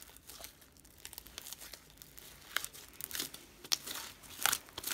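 Sticky homemade slime being stretched and squeezed by hand, giving off small wet pops and crackles, more of them and sharper in the second half. The slime is still sticky, not yet fully activated.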